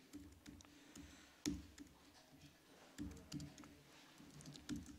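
Faint typing on a laptop keyboard: irregular key taps, a few of them louder, while code is typed into a text editor.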